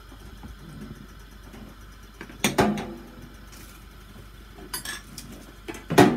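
Two sharp clanks of metal kitchenware, about two and a half seconds in and again near the end, each ringing briefly, with a few lighter clicks between them.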